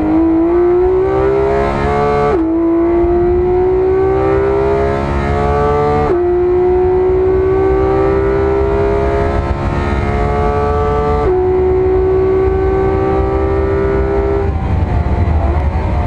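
A 2018 Porsche 911 GT3 RS's naturally aspirated 4.0-litre flat-six at full throttle, heard from inside the cabin. It climbs in pitch through the gears, with three quick PDK upshifts about two, six and eleven seconds in, each a sudden drop in pitch. About fourteen seconds in the throttle lifts and the engine note falls away for the next corner.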